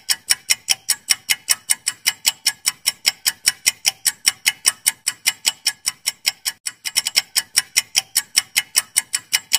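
Clock-tick countdown timer sound effect: fast, even ticks about five a second, stopping abruptly near the end, marking the time allowed to answer a quiz question.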